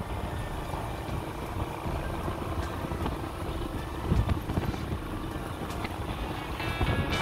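Steady rumble of a motor vehicle under way, engine and road noise together. Music comes in near the end.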